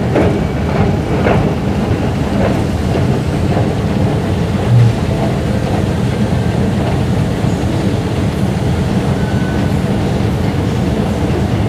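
Steady low mechanical rumble in an underground MRT station, from a running escalator and the station's rail machinery, with a few light clicks near the start and a brief low bump about five seconds in.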